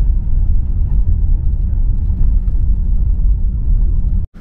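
Steady low rumble of a tour coach driving at highway speed, heard from inside the cabin: engine and road noise. It cuts off suddenly near the end.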